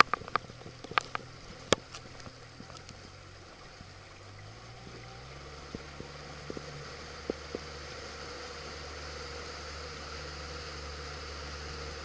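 A boat's motor running at low speed as a steady low hum that steps up a little in pitch about four to five seconds in, over water splashing and lapping at the hull. A few sharp knocks in the first couple of seconds, and a few more later.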